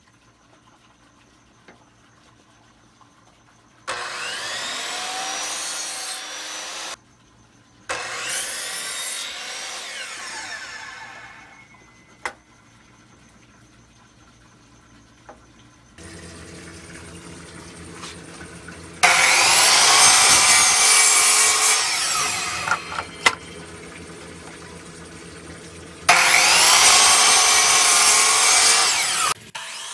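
DeWalt miter saw cutting through a wooden block four times. The second cut trails off as the blade slows, and from about halfway through the motor runs steadily between the last two cuts.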